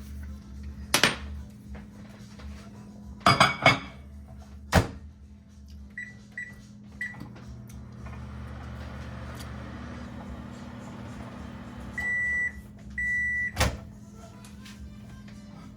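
Microwave oven in use. The door latches shut with sharp knocks and three short keypad beeps set it running, and it hums steadily for a few seconds. Two longer beeps then sound, followed by the sharp clack of the door release.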